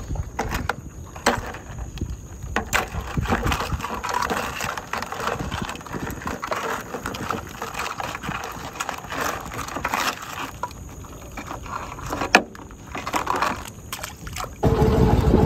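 Wire crab trap clinking and rattling with irregular metallic clanks, water sloshing and dripping. About a second before the end a steady boat motor hum comes in, louder.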